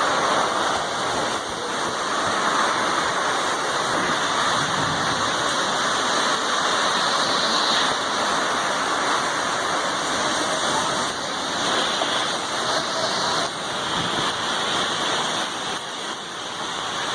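Storm wind and rain: a steady, loud rushing noise that swells and eases slightly.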